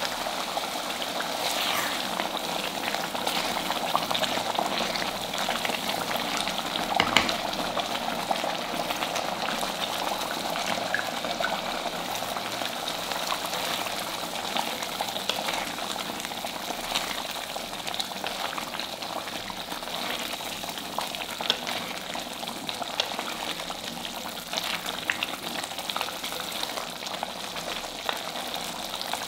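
Thick tomato-based gravy simmering in a heavy black kadai, bubbling and popping steadily, with a spatula stirring through it at times.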